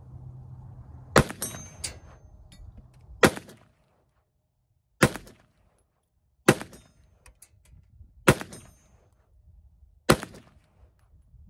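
Kel-Tec PMR-30 .22 Magnum semi-automatic pistol firing six single shots, about one and a half to two seconds apart.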